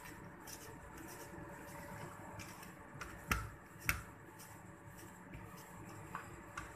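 Hands rubbing and mashing crumbly chenna against a steel plate, a faint, steady scraping and squishing, with two sharp taps on the plate a little past halfway, about half a second apart.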